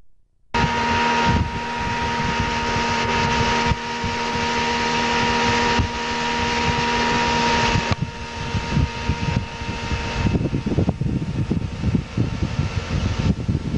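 Outboard motor running at steady speed under way, its drone mixed with the rush of air and water. From about eight seconds in the engine tone fades and gusty wind buffeting on the microphone takes over.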